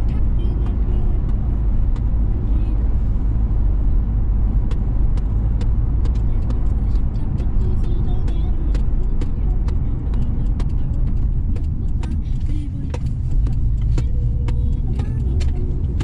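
Steady low rumble of a car's engine and tyres heard from inside the cabin while driving, with scattered faint clicks.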